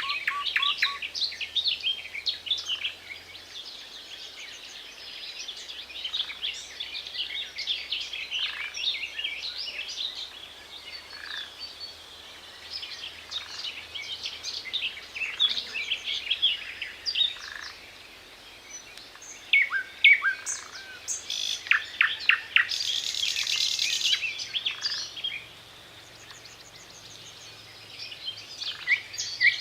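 Nightingale singing: varied phrases of rapid clicks, trills and whistled notes, each phrase set off by a short pause. One dense rattling phrase about three-quarters of the way through is the loudest.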